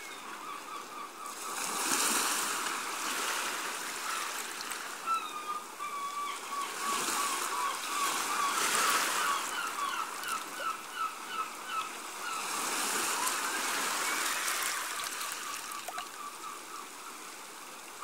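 Gentle waves washing in on a sandy shore, swelling and fading three times, with birds chirping short repeated notes over the surf.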